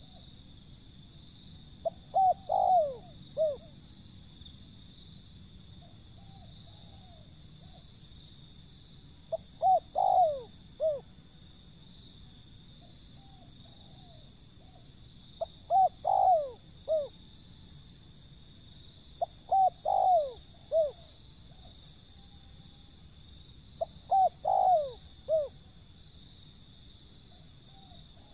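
Spotted dove cooing: five phrases of a few short, down-slurred coos, each phrase about a second and a half long and repeated every four to six seconds, with fainter coos in between.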